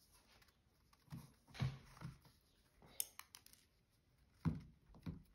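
Faint handling sounds of a rice-filled sock being gripped and shaped for tying: soft thumps and rustles, with a few small sharp clicks about three seconds in.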